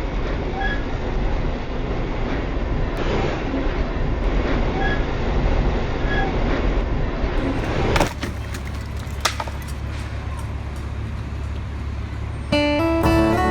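Steady rumbling vehicle noise with a few faint, brief beeps. It cuts off about eight seconds in to quieter street ambience with a few sharp clicks, and strummed guitar music begins near the end.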